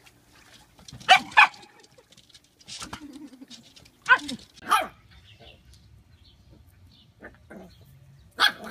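Corgi barking in short, sharp pairs: two barks about a second in, two more about four seconds in, and another near the end.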